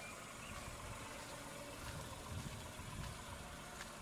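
Tata Altroz's naturally aspirated 1.2-litre three-cylinder petrol engine idling steadily and quietly, heard from outside the car.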